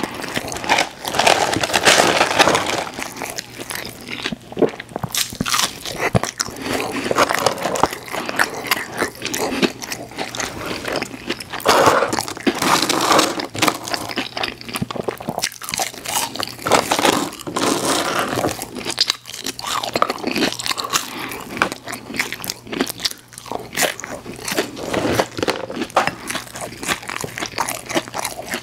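Close-miked biting and chewing of McDonald's chicken nuggets dipped in cheese sauce: repeated crunchy bites and chewing, one after another with short pauses.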